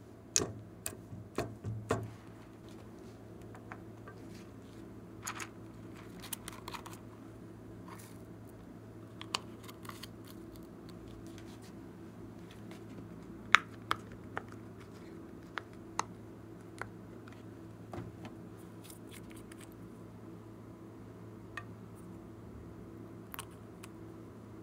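Sparse light clicks and taps from hands handling small bottles and containers around a glass dish of slime, over a steady low hum. A quick cluster of taps comes in the first two seconds, and one sharp click about halfway through.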